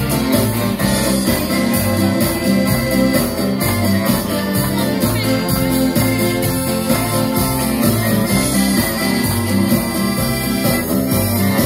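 Live acoustic band playing a cover song on strummed acoustic guitar, mandolin and accordion, with a steady rhythm.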